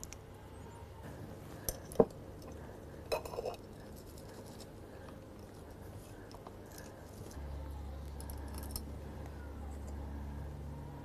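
Small hard craft pieces clicking and clinking as they are handled, with one sharp click about two seconds in and a short run of clinks a second later. A low steady hum comes in past the middle.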